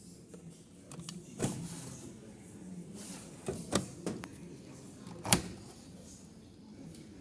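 Several sharp knocks and clicks, the loudest a little over five seconds in, over a steady low background hum.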